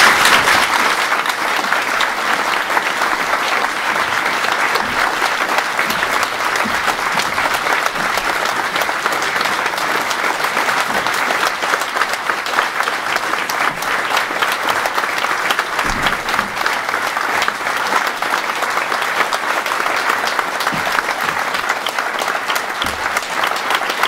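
A large audience breaking into applause all at once, the clapping then held at a steady level.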